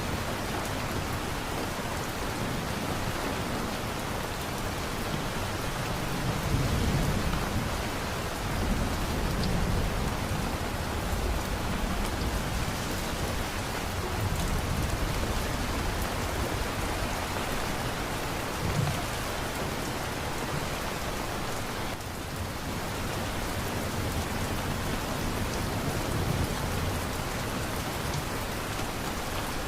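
Steady heavy rain hissing and pattering, with low rumbles of distant thunder swelling up now and then.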